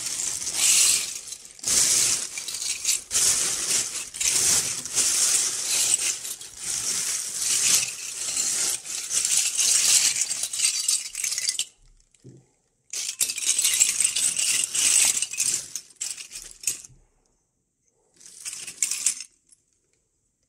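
Loose SBM-20 metal Geiger-Müller tubes being stirred by hand in a bag, clinking and rattling against each other. The clatter goes on for about twelve seconds, stops briefly, resumes for about four seconds, and ends with a short final burst.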